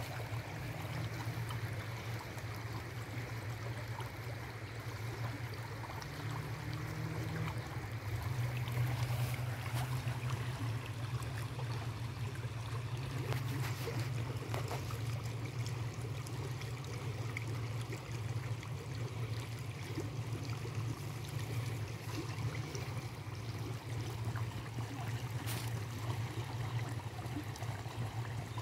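Shallow pebbly stream running with a steady rushing and trickling, with a few faint clicks.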